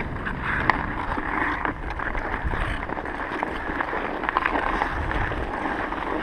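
Ice skate blades scraping and gliding over rough outdoor pond ice in a steady hiss, with a few sharp knocks of hockey sticks and puck on the ice.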